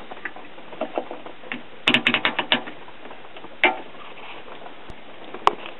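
Small mechanical clicks and taps from handling the capacitor tester between tests: a quick run of clicks about two seconds in, then a few single clicks.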